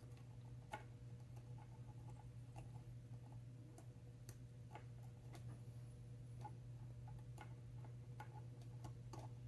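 Faint, irregular small metallic clicks of steel tweezers against the links of a metal expansion watch bracelet as a link's tabs are worked into place, over a steady low hum.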